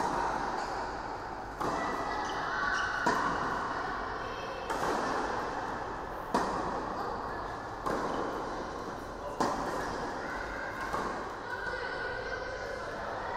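Tennis ball struck by rackets in a rally on an indoor court, a sharp pop about every second and a half, each ringing briefly in the hall.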